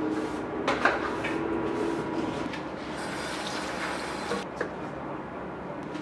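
Bathroom cleaning sounds: a couple of sharp knocks from the cleaning tool early on, then a brief rushing hiss of water for about a second and a half, three seconds in.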